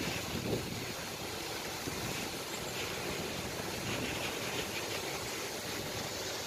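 Paddlewheel aerators churning the water of prawn ponds, keeping it oxygenated: a steady splashing wash.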